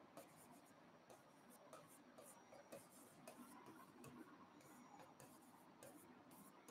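Faint, irregular scratching and tapping of a stylus writing on an interactive touchscreen whiteboard.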